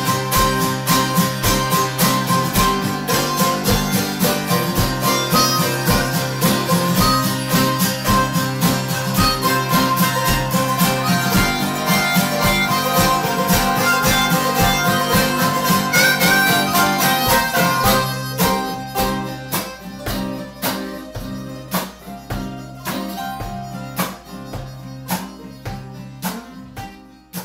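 Acoustic jam: guitars strumming a steady rhythm under a harmonica playing the lead. From about two-thirds of the way through the playing thins out and dies away at the end.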